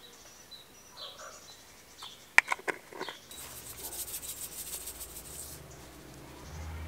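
Salt shaken from a shaker over a metal bowl: a fast, fine, high-pitched rattle for about two seconds, just after a few sharp clicks near the middle. Faint bird chirps before it.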